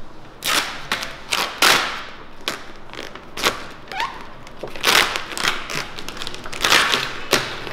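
Car-wrap vinyl film being lifted, stretched and pressed down by hand onto a car's bumper: a string of short crinkles and rustles of the film, irregularly spaced.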